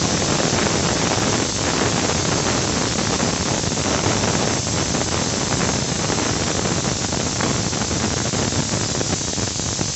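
Pressure cooker whistle blowing: steam jets out past the weight valve in a loud, steady hiss. This one whistle signals that the khichdi inside has cooked under pressure.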